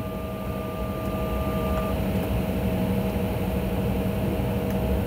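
Airliner cabin noise while taxiing: a steady low rumble and hum from the jet engines at idle and the cabin air system, with a few held tones. One thin high tone stops about two seconds in.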